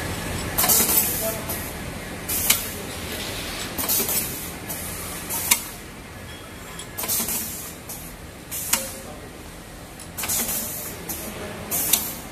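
Automatic liquid sachet filling and sealing machine cycling: its pneumatic valves and cylinders let out a burst of compressed air about every one and a half seconds, most with a sharp click, over a steady low machine hum.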